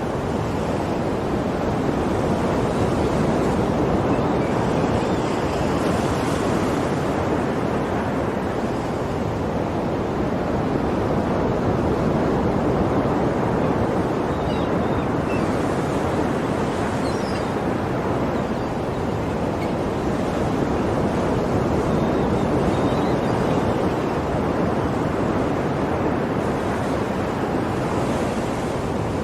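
Sea waves washing onto a shore in a continuous rushing surf that swells and eases slowly every several seconds.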